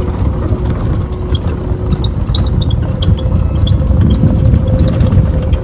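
Open tourist vehicle in motion: a steady low rumble of its motor and wheels on the road, with a faint steady whine over it.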